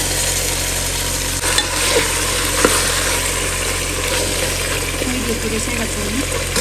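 Raw pork pieces sizzling in hot spiced oil in a pressure cooker while a spatula stirs and scrapes them, with a few sharp knocks of the spatula against the pot.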